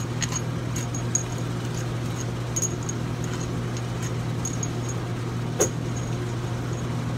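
Steady low machine hum, with light metallic clicks and ticks as compressor head bolts are handled by gloved hands, and one sharper click about five and a half seconds in.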